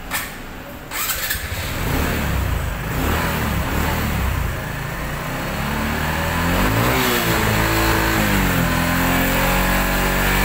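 Honda XRM125 FI's single-cylinder four-stroke engine running in good condition after a new fuel filter. It is revved up and back down once about two-thirds of the way in, then holds a steady, slightly faster idle.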